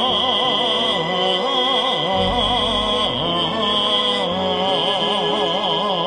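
Man singing long held notes with a wide, slow vibrato over a backing track.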